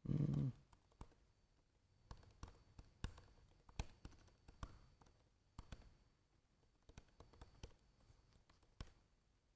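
Laptop keyboard typing, faint: irregular key clicks scattered throughout. A brief low thump right at the start is the loudest sound.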